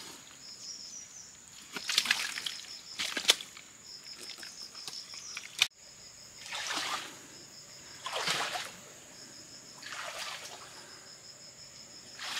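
Water splashing and sloshing in separate surges, one every second or two.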